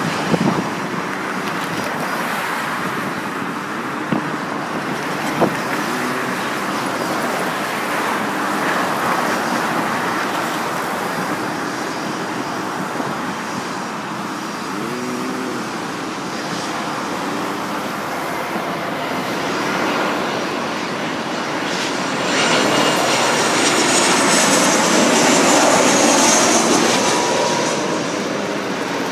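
Twin-engine jet airliner on landing approach, gear down. Its engine noise swells from about two-thirds of the way in, with a high fan whine in several tones falling slowly in pitch, over steady background noise. The sound eases slightly near the end.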